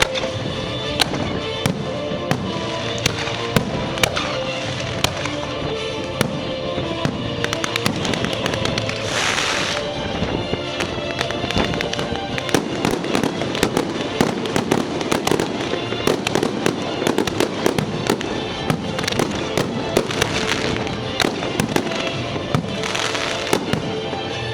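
Fireworks going off in a rapid string of bangs and crackles over steady background music, with two longer hissing bursts about nine seconds in and near the end.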